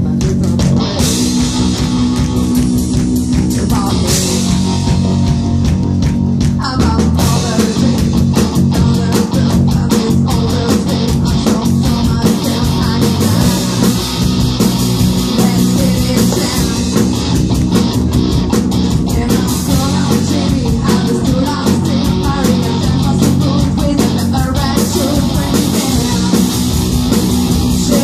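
Live rock band playing loud, with distorted electric guitars, bass and a drum kit; the drums come in fully about a second in, and a woman sings over the band.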